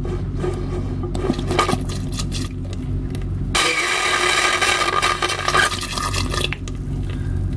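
VacuFlush marine toilet sucking air past its worn bowl seal: a low hum, then a sudden hissing suck about three and a half seconds in, with the water at the bowl outlet bubbling. The air leak shows the bowl gasket needs to be replaced.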